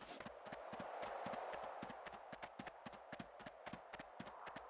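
Quick, even footfalls of a trotting dog: a run of light clicks, several a second, over a steady hiss.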